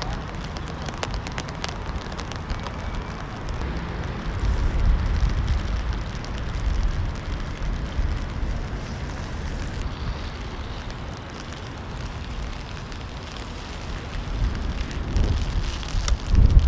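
Rain falling on wet pavement, a steady hiss with fine crackle, and wind buffeting the microphone in low rumbles that swell twice, the second time near the end.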